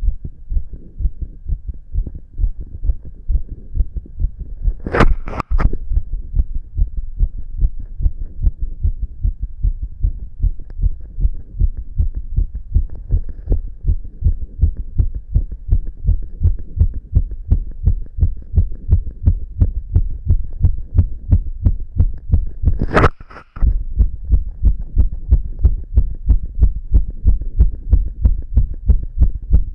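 A man's heart beating fast: rapid, regular low thumps, a little over two a second. Twice a brief, louder, sharper noise cuts across the beat, about five seconds in and past the twenty-second mark.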